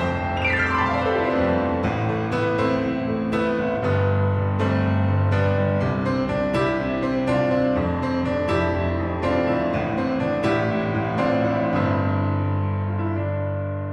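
Instrumental break of a singer-songwriter's song: piano playing steady chords about twice a second over held bass notes, with no singing. A brief falling sweep sounds in the first second, and the music eases down in level near the end.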